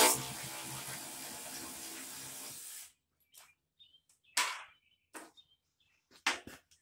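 Cordless drill with a socket running steadily as it spins out a seat-spring bolt, cutting off about three seconds in. A few short knocks of the tool and parts being handled follow.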